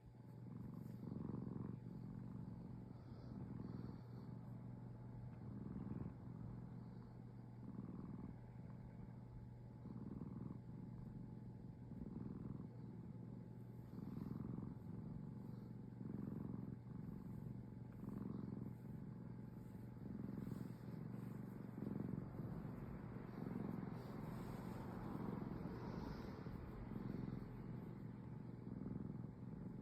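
Cat purring steadily, swelling and easing with each breath about every two seconds.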